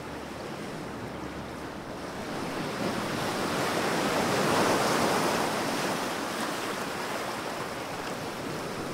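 Sea surf sound effect: one long wash of waves that swells to its loudest about halfway through, then slowly eases off.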